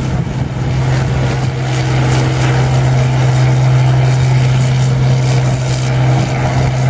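International Harvester farm tractor's engine running flat out under load as it drags a weight-transfer pulling sled down the track, a loud steady drone at an even pitch, with the noise of the sled pan scraping through the dirt.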